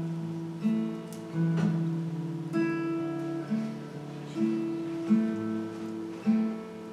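Soft background music of slow chords, each struck about once a second and left to ring.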